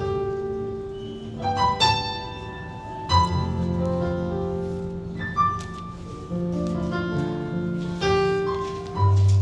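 Instrumental music: a keyboard playing sustained chords and single notes over low bass notes, the introduction to a worship song before the singing comes in.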